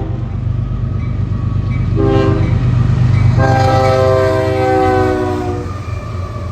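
Multi-chime air horn of a CSX GE ES40DC locomotive on a fast-moving grain train, blowing the grade-crossing signal: a long blast cutting off right at the start, a short blast about two seconds in, then a long blast from about three and a half seconds that drops in pitch as the locomotive passes (Doppler effect). Underneath runs the steady rumble of the passing train.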